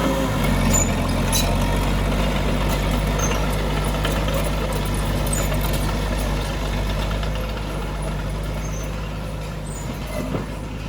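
Diesel engine of heavy earthmoving machinery running steadily, with scattered light clicks and clanks, growing a little quieter over the last few seconds.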